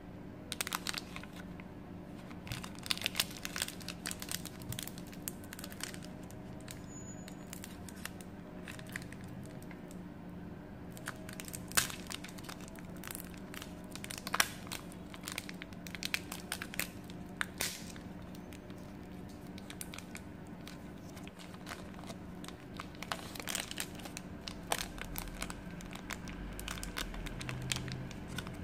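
Mini KitKat's plastic wrapper crinkling and tearing as it is handled and peeled open, a run of sharp crackles, over a faint steady hum.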